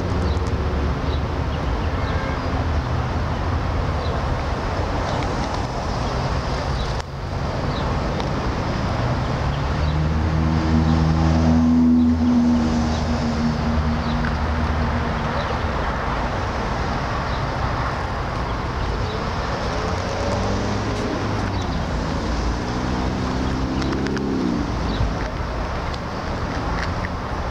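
Steady road traffic noise, with one motor vehicle passing about halfway through and another engine rising in pitch and then cutting off near the end.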